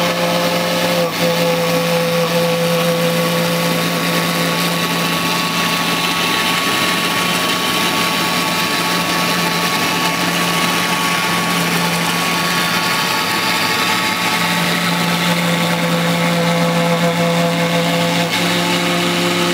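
CNC router spindle running steadily while carving expanded polystyrene foam: a hiss of cutting with several steady tones over it. The lowest tone fades in the middle stretch and comes back near the end.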